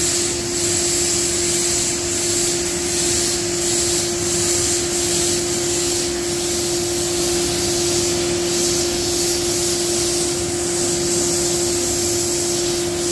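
Steady machine drone with a constant hum tone and a hiss over it, unbroken throughout: machinery running in the background.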